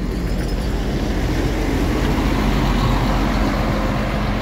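Double-decker coach's diesel engine running as the bus drives past, growing a little louder to a peak about three seconds in and easing off after, over road traffic.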